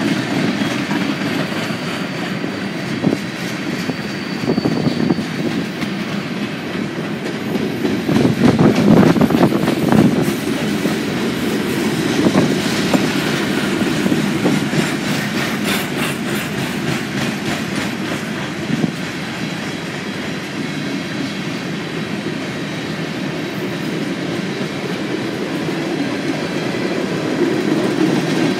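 Freight train cars rolling past at close range: steady wheel-on-rail rumble with the clickety-clack of wheels over rail joints, loudest about eight to ten seconds in.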